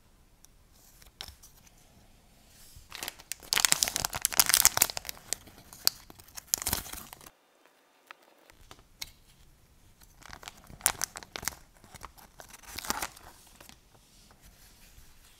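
Crinkly peeling and rustling of a LEGO sticker sheet as clear stickers are lifted off their backing with a hobby knife. It comes in two spells, the first louder, with a moment of complete silence between them.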